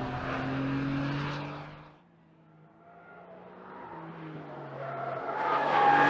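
2025 Porsche 911 Carrera GTS's 3.6-litre flat-six exhaust running at a steady pitch. It fades away almost to silence about two seconds in, then grows steadily louder again towards the end.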